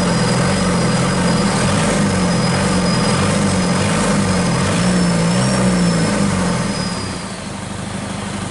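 Hyundai D4DD four-cylinder diesel engine running steadily on a test run outside a vehicle, with a thin high whine over the engine's note. About seven seconds in, the engine sound drops a little quieter and changes.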